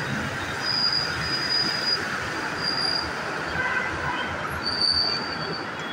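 Distant jet airliner landing, its engines giving a steady rushing roar, with wind buffeting the microphone. Several short high-pitched whistles, each about half a second long, sound over it, the loudest near the end.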